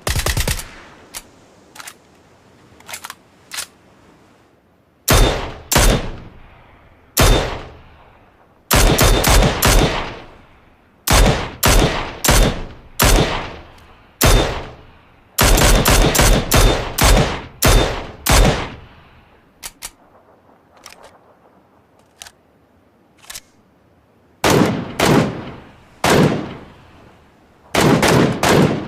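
Gunfire sound effects: bursts of rapid automatic fire, several shots in quick succession, alternating with quieter single shots and short pauses, each burst trailing off in an echo.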